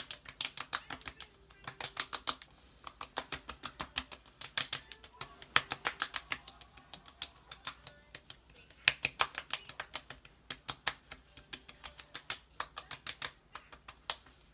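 Palms rapidly patting skincare product into the face: quick, light slaps on skin in runs of about seven a second, broken by short pauses.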